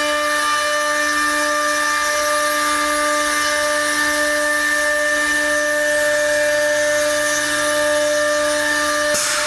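Two high-speed 3-horsepower router motors on an automatic stair trencher running with a steady high whine while routing trenches in a wooden stair stringer. A short burst of hiss comes near the end.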